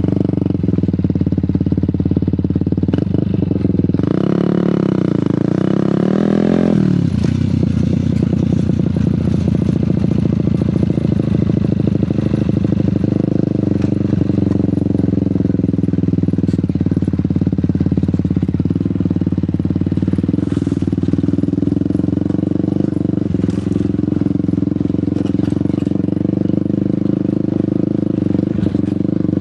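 Fantic Caballero 125 scrambler's single-cylinder engine running under way, its pitch rising and falling a few times about four to seven seconds in, then holding steady.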